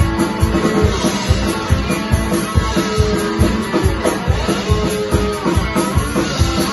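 Live band playing an instrumental break: a guitar plays a lead line with bent, gliding notes over a steady drum beat of about four thumps a second.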